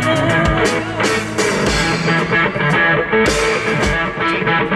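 Live rock band playing: electric guitars and bass over a drum kit keeping a steady beat.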